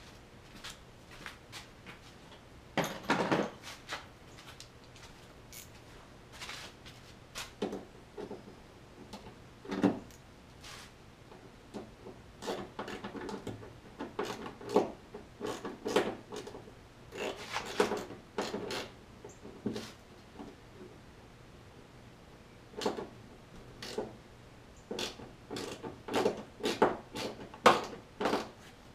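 Hand work at a Jeep Wrangler's taillight: irregular clicks, small knocks and scrapes of a screwdriver and the plastic taillight housing as the taillight is refitted, with a longer scrape about three seconds in.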